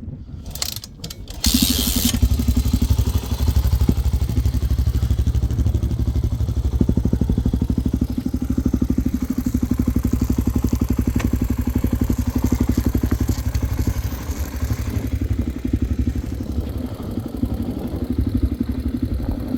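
Honda XR400R dirt bike's single-cylinder four-stroke engine. Its sound comes in suddenly about a second and a half in, after a few thumps, and then runs steadily.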